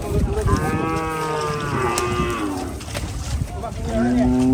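Cattle mooing: one long moo that falls in pitch at its end, then a second, lower-pitched moo beginning near the end.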